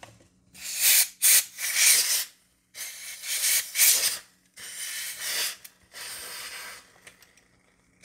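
Compressed-air duster spraying in about six short blasts of loud hiss, its straw aimed into a hair dryer's fan and motor assembly to clear out dust.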